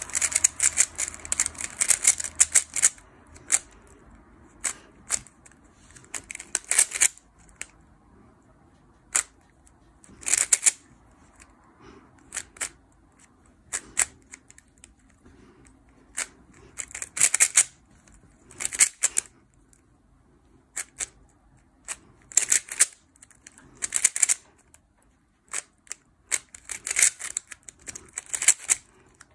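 Yulong V2 Magnetic speedcube being turned by hand: quick runs of sharp plastic clicks and clacks from the layer turns, with short pauses between the runs. The longest run comes first, then shorter flurries every second or two.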